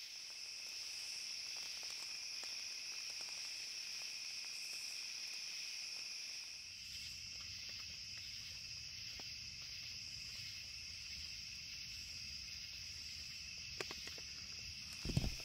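Crickets and other night insects trilling in a steady chorus, heard as two continuous high-pitched bands. A soft low thump comes near the end.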